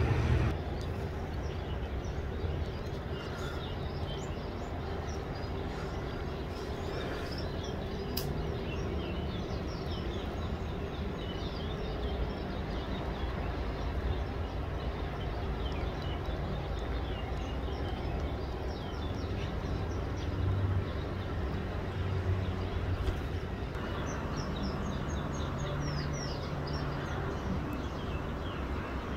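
Small birds chirping over and over, short high calls scattered throughout, over a steady low rumble.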